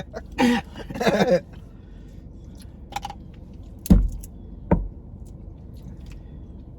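People eating seafood close to the microphone: a brief vocal sound near the start, then a few sharp clicks and two heavier knocks less than a second apart.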